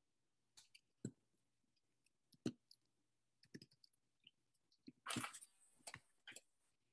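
Near silence broken by a few faint scattered clicks and one short scraping rustle about five seconds in.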